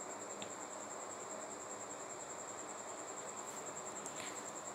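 A cricket trilling steadily, a faint high pulsing note over low room hiss.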